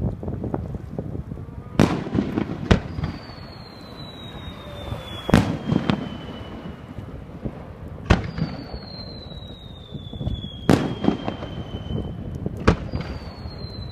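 Aerial fireworks display: shells bursting with about half a dozen sharp bangs and rumbling crackle between them, and three whistling shells, each a long whistle sliding slowly down in pitch.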